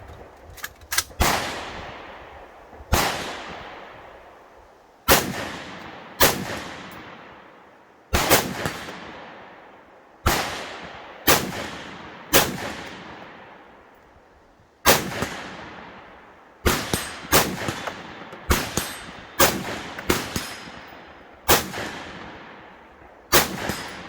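Rifle shots fired at an uneven pace, about twenty over the stretch, sometimes two or three in quick succession and sometimes with pauses of a second or two; each crack trails off in a long echo. A few fainter sharp clicks come just after the start.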